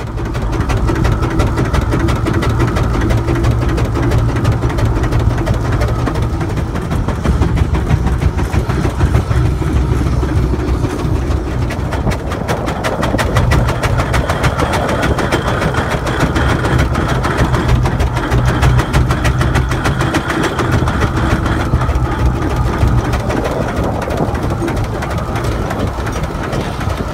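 Wallis & Steevens steam traction engine running under load while hauling a Lancashire boiler, its motion and gearing clattering with a fast, even beat over a steady low rumble, heard from on the footplate.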